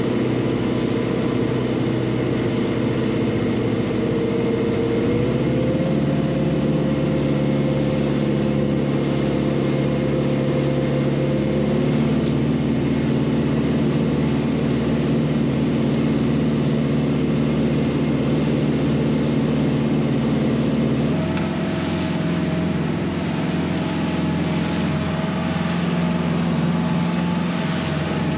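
A motor boat's engine running under way at a steady level, its note stepping up a little about five seconds in and again about twelve seconds in, then changing abruptly about twenty-one seconds in.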